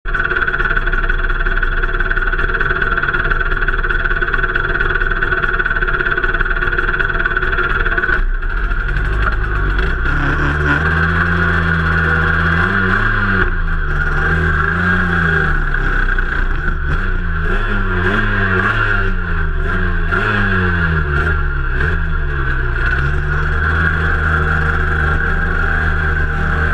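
Cagiva Mito 125's two-stroke single-cylinder engine. For the first eight seconds there is a steady sound. From about ten seconds in the engine is blipped again and again, its pitch rising and falling with each throttle blip, and it settles into a steadier run near the end.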